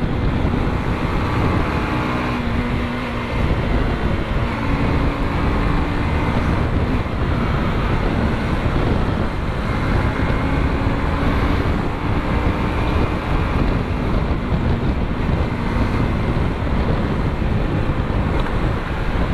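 Honda Shine 125 motorcycle's single-cylinder engine running steadily at cruising speed, heavily masked by wind rushing over the microphone. A steady engine hum comes through at times.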